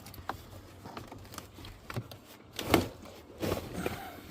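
Van floor carpet being pulled back by hand: rustling and crinkling with scattered clicks, and one louder scrape or thump a little past the middle.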